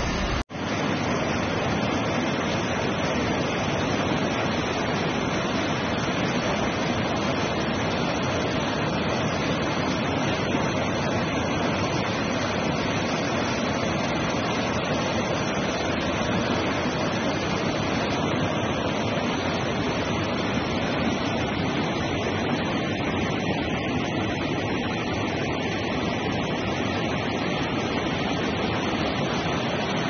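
Bogatha Waterfalls in heavy flood: a steady rush of falling and churning water, with a brief drop-out about half a second in.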